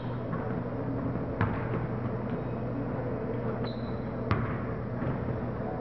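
Basketball hitting hard surfaces on a hardwood gym court: a sharp bang about a second and a half in and a louder one a little after four seconds. A short high sneaker squeak comes just before the second bang, over a steady low hum.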